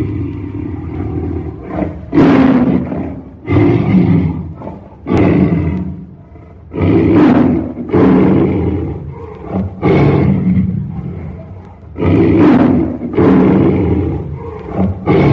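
Tiger roaring furiously: about nine loud roars in a row, each starting suddenly and trailing off, one to two seconds apart.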